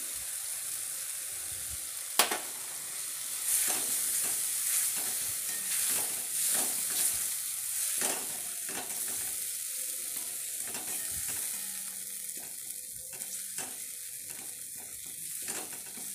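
Spice paste with poppy-seed paste sizzling in mustard oil in a metal kadai as it is sautéed, while a wooden spatula stirs and scrapes it in irregular strokes. There is one sharp knock of the spatula about two seconds in.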